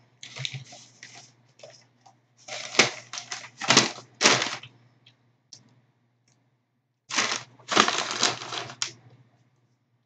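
Crinkling and rustling of a McDonald's paper fry carton being handled and fries pushed into it, in several crackly bursts, the longest from about seven to nine seconds in.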